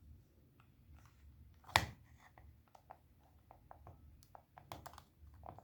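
Handling of a Pioneer CD player's infrared remote control: one sharp click a little under two seconds in, then a run of faint, soft clicks as its buttons are pressed.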